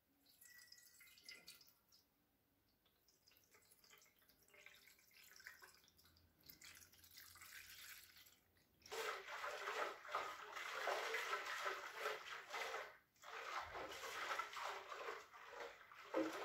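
Liquid rust-remover acid splashing and gurgling in a small steel moped fuel tank. It starts about nine seconds in, with a brief break before the end, and only faint ticks come before it.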